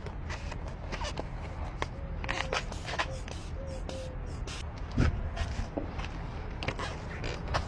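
Irregular light clicks, taps and knocks of hand work, such as tools and a car door being handled, with a louder knock about five seconds in and a few faint squeaks between two and four seconds in.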